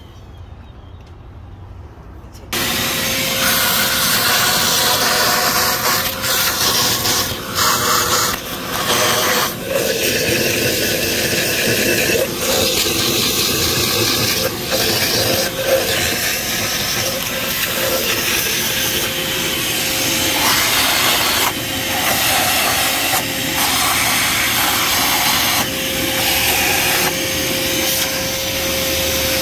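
A motor-driven tool starts suddenly about two and a half seconds in and then runs steadily with a faint hum, with rubbing and scraping over it that rises and dips, as the cylinder heads are cleaned.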